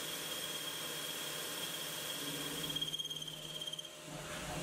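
CNC lathe boring a spinning metal collar with a boring bar: a steady high whine over hiss. About three seconds in the whine wavers and pulses, then it stops just before four seconds in.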